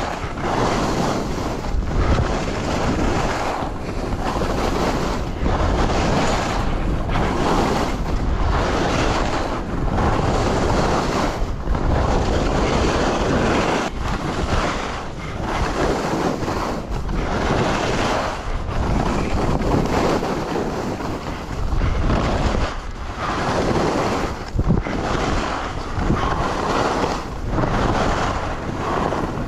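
Skis hissing and scraping through snow in a run of linked turns, the rush swelling and dropping about once a second, with heavy wind noise on the microphone.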